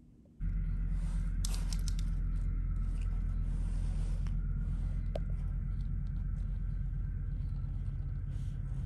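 Low, steady diesel engine rumble of a passing canal workboat, the Port of Fryslân vessel 'Jutrup', starting suddenly just after the start.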